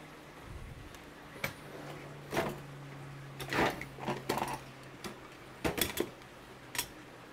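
A metal fork scraping and clicking in a bowl of crab filling and tapping as the filling is dropped onto a wonton wrapper on a sheet pan: a scatter of short, sharp clicks and scrapes over a steady low hum.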